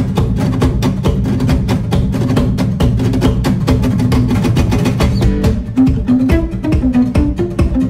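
Instrumental background music with a fast, steady beat over a low bass line; a short stepping melody of plucked notes comes in about six seconds in.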